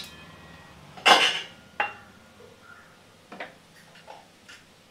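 A metal spatula scraping and knocking against a wok of frying masala: one louder scrape about a second in, then a few light clicks.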